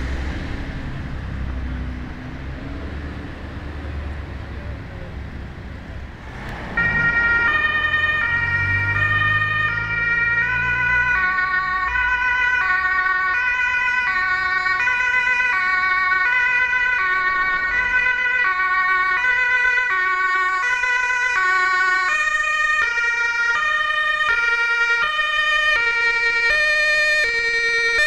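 Traffic noise and a vehicle engine, then about a quarter of the way in an ambulance's German two-tone siren (Martinshorn) switches on abruptly. It sounds loudly, alternating between its two tones about every 0.7 seconds as the ambulance approaches.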